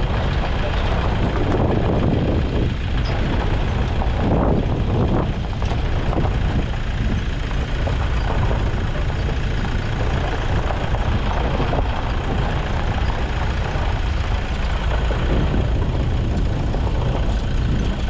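Car driving slowly along a gravel road, heard from a camera mounted on the outside of the car: a steady low rumble of engine and tyres on gravel.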